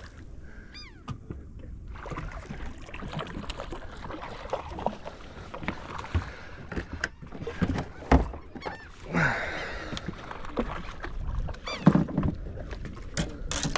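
Scattered knocks, clicks and rustling of a hooked catfish being landed and handled in a small fishing boat, with a sharp knock about 8 s in and another near 12 s. A few short, high, pitched cries come through about a second in and again past the middle.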